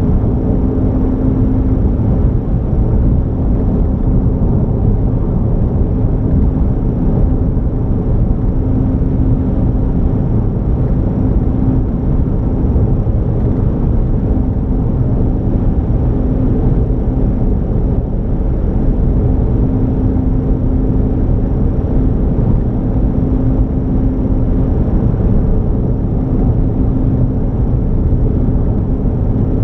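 Car driving at a steady speed: continuous low road and engine rumble with a steady droning hum.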